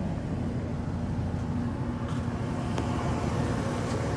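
Whirlpool clothes dryer running just after being started: a steady hum and rumble of the drive motor and the turning drum, with a few faint ticks.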